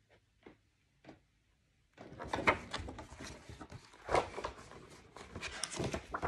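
A hardcover picture book being handled and its pages turned: a run of paper rustles and soft knocks, starting about two seconds in after a near-silent pause.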